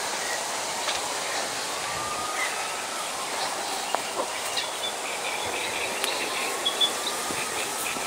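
Steady outdoor ambience in a reed marsh: a constant hiss with a few faint bird chirps and occasional light clicks.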